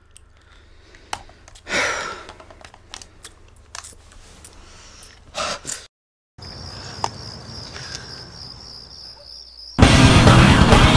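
Quiet film soundtrack with scattered soft clicks and rustles, a moment of dead silence, then a high wavering whine over a low hum, before loud heavy rock music cuts in near the end.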